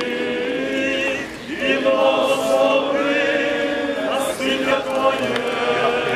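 Choir singing a slow liturgical chant in long held notes, with short breaks between phrases.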